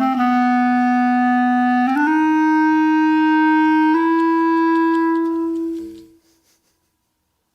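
Closing bars of a rock song's outro: a lone instrumental melody line holding three long notes, each a step higher than the last, then fading out to silence about six seconds in.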